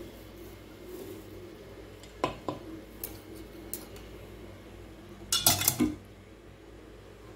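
Metal kitchen utensils clinking against a stainless-steel mixing bowl of rice-flour dough: two clinks about two seconds in, a few light ticks, then a louder quick cluster of clinks just before a steel strainer is brought over the bowl.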